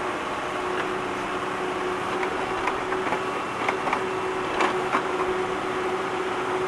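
Digging tractor's engine running steadily with a constant hum, with scattered short knocks and scrapes of digging in the ground through the middle, the loudest about four and a half seconds in.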